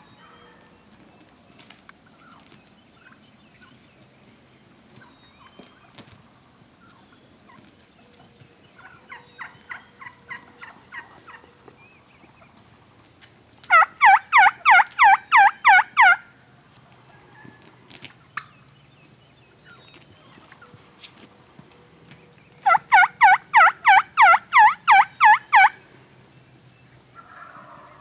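Rio Grande wild turkey gobbling three times: a fainter gobble about nine seconds in, then two loud, close gobbles, each a rapid rattle of notes lasting two to three seconds.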